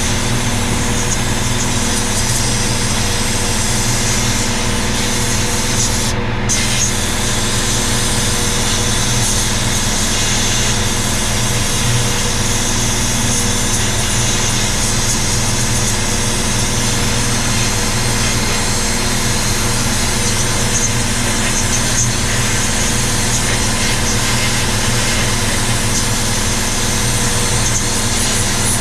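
Workshop machine running steadily with an even hiss over a constant motor hum, used on the rusty vise parts.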